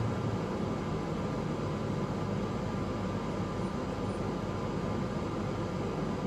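Steady engine and running hum heard from inside the cabin of a Ford shuttle bus, an even drone with no sudden changes.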